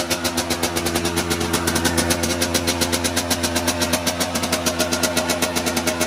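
Suzuki RM85's two-stroke single-cylinder engine running steadily just after a cold kick-start, with a fast, even pulsing beat.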